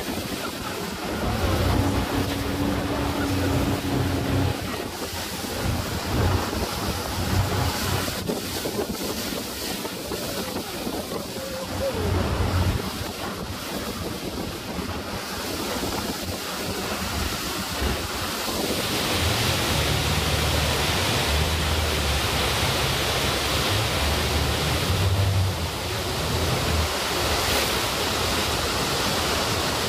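Wind buffeting the microphone and rushing water aboard a speedboat running fast on the river. From about two-thirds of the way in, a steadier, fuller rush of falling water builds as the boat comes close to a waterfall.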